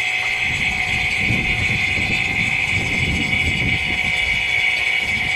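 Harbor Freight electric vacuum pump running steadily, slowly pulling a car's A/C system down into vacuum through the manifold gauges. An uneven low rumble sits underneath from about half a second in.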